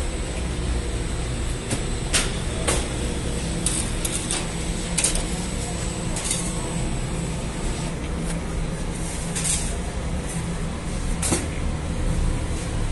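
Steady low rumble with about a dozen sharp clicks and knocks scattered through it, the loudest around two, five and eleven seconds in.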